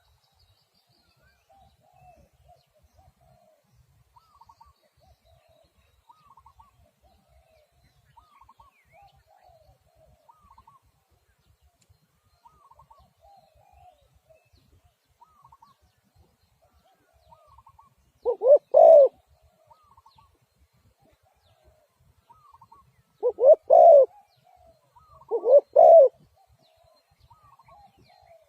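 Spotted doves cooing: a faint dove calls over and over in short phrases, and about two-thirds of the way in a much louder, closer dove starts giving short coos, three times.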